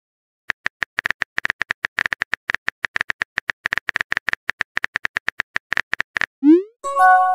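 Phone-keyboard typing sound effect: a fast, irregular run of short clicks. Near the end it stops, followed by a short rising swoosh and a brief chime as a message is sent.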